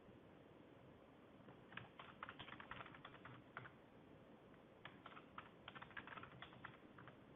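Faint computer keyboard typing, two short bursts of rapid keystrokes about a second apart, as a password is typed in and then typed again.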